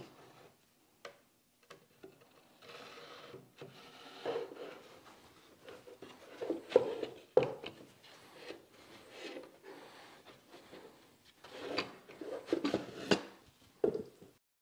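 Wooden forms and boards being handled and fitted on a wooden workbench: pieces sliding and rubbing against each other, with scattered knocks as they are set down and positioned.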